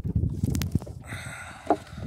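Low, irregular rumble of deck-handling and wind noise as the jib of a small sailboat is shifted across after a tack. A sharp click comes about half a second in, and a short squeak near the end.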